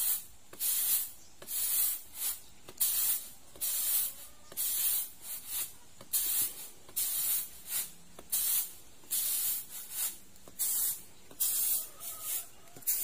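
Rice grains swishing and rustling on a woven bamboo winnowing tray (tampah) as it is tossed and shaken by hand, in a rhythmic run of swishes roughly two a second: rice being winnowed the traditional way to clear debris from between the grains.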